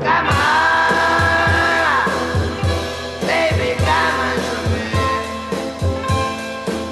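Background music: a sung line opening on a long held note, over a steady drum beat.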